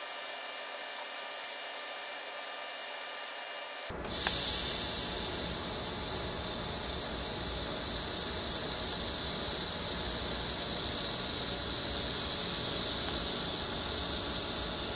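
TIG welding arc on stainless steel: faint and steady at first, then about four seconds in it jumps suddenly to a loud, steady hiss that holds until near the end.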